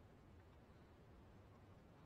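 Near silence: faint, steady low room tone.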